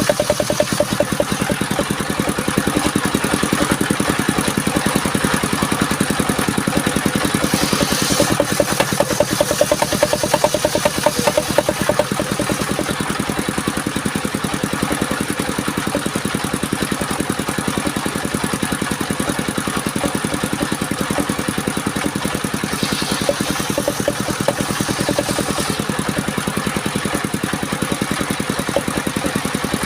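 Engine of a circular sawmill running steadily with a fast, even beat. Short spells of higher-pitched hiss come about 8 seconds in and again near the three-quarter mark.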